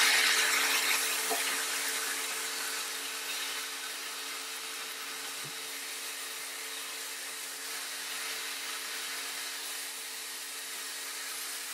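Pieces of fatty armadillo meat sizzling as they fry in a pan. The sizzle is loudest at the start and eases to a steady level after a few seconds.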